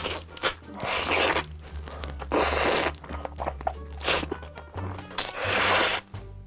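Close-miked eating sounds of a man slurping spaghetti in tomato sauce and chewing: three loud, noisy slurps with crunchy, wet chewing between them. Background music with a steady bass runs underneath.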